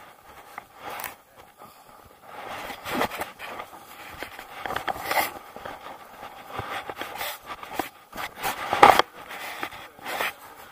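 Irregular scraping and rustling of ski gear and clothing being handled close to the microphone, the loudest scrape about three-quarters of the way through.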